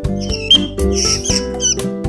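Background music with a steady beat, with several short, high, bird-like chirps over it.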